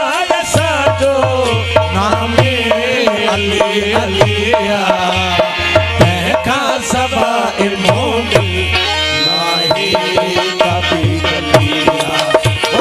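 Sindhi devotional folk music playing an instrumental interlude: a harmonium melody over a steady hand-drum rhythm with deep bass strokes that slide down in pitch.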